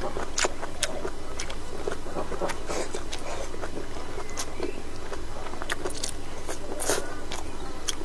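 Close-up eating sounds: irregular chewing and mouth smacks with short clicks, a little louder about seven seconds in, over a steady low hum.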